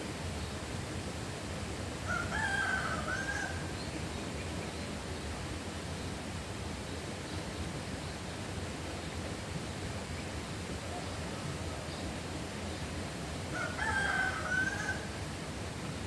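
A rooster crowing twice, each crow lasting about a second and a half, the second about eleven seconds after the first. Underneath is a steady rushing hiss.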